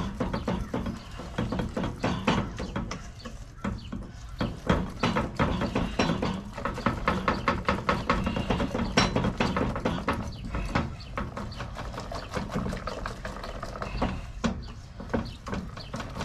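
Wire whisk beating waffle batter in a stainless steel mixing bowl: a steady run of rapid clicks and scrapes as the wires strike the bowl.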